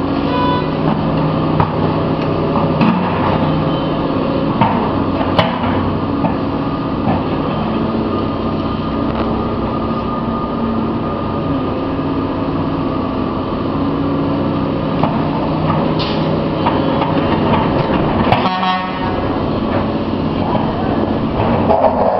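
A Doosan crawler excavator's diesel engine running steadily as it digs, amid backed-up street traffic with car horns honking. Scattered knocks, the sharpest about five and a half seconds in and about eighteen seconds in.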